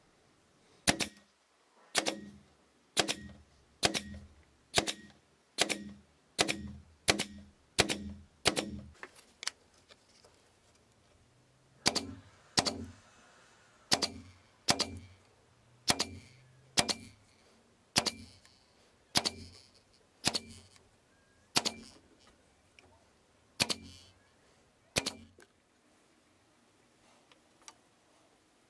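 Upholstery staple gun firing staples while fabric or padding is fastened to a soft headboard: sharp single shots about one a second, ten in a row, then after a pause of about three seconds a dozen more, more unevenly spaced, ending about three seconds before the close.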